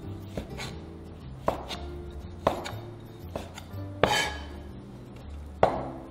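Chinese cleaver slicing raw pork on a wooden cutting board: a series of irregular knocks as the blade meets the board, the loudest about four seconds in and again near the end.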